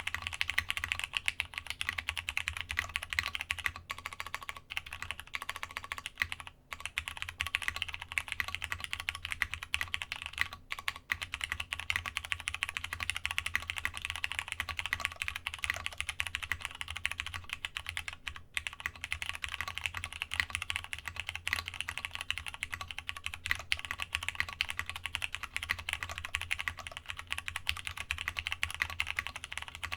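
Fast, continuous typing on a Masjewerke K-III custom mechanical keyboard with plateless Cherry MX Brown switches, GMK keycaps and a polycarbonate internal, with a few brief pauses between runs of keystrokes.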